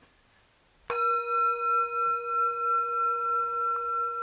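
A singing bowl struck once about a second in, then ringing on with several steady tones together and a slow, pulsing waver in loudness.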